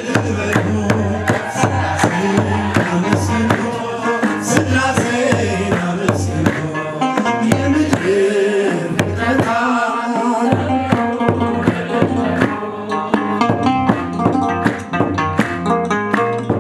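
Ethiopian Orthodox hymn (mezmur) sung by a man into a microphone over steady hand-drum beats and instrumental backing.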